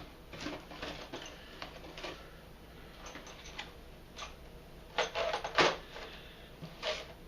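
Kit box being opened and bagged plastic parts handled: rustling and light clicks and scrapes, with a louder burst of rustling about five seconds in.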